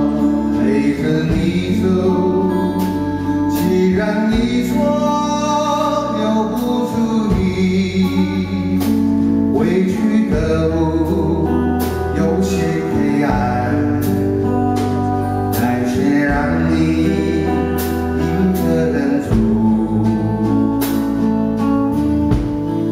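Man singing a slow Mandarin pop ballad live into a handheld microphone over instrumental accompaniment of sustained bass and chords.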